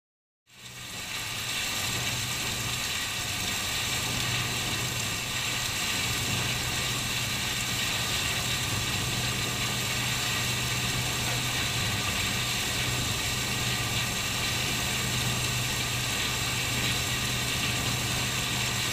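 SSI Uni-Shear SR900 single-shaft grinder running steadily as it shreds mixed electronic scrap: a constant low hum under a dense, even grinding clatter that fades in about half a second in.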